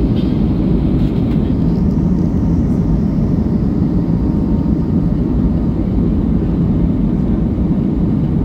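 Steady low rumble of an airliner's engines and airflow, heard from inside the cabin.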